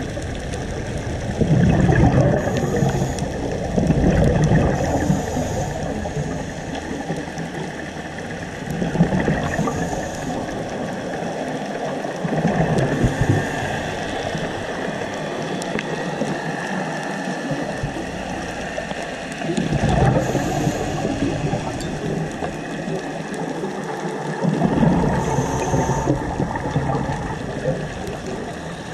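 Scuba diver breathing through a regulator underwater: a loud rush of exhaled bubbles about every four to six seconds, six times, over a steady underwater hiss.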